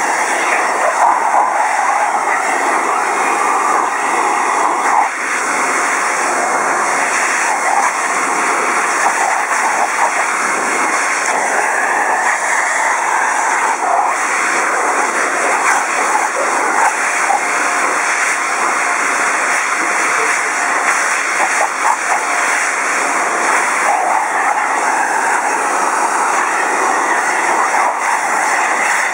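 Hair dryer blowing steadily on a dog's wet coat, a continuous rush of air with small rises and dips.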